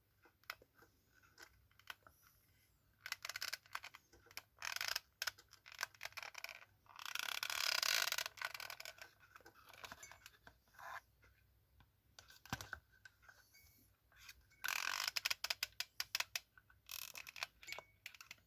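Irregular clicks, taps and scrapes of a hot glue gun being worked against a metal jar cap, with two longer scraping stretches, around a third of the way in and again near the end.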